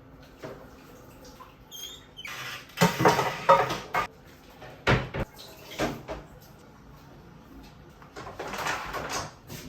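Household handling sounds: rustling and clatter of things being moved about two to four seconds in, a few sharp knocks around five and six seconds, and more rustling and clatter near the end.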